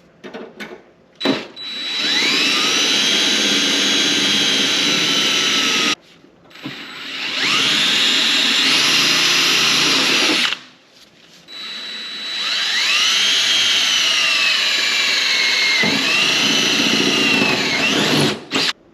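Electric drill boring holes through a sheet-metal patch panel for Cleco fasteners, in three runs: each time the motor whine rises as it spins up, then holds and sags as the bit bites into the metal.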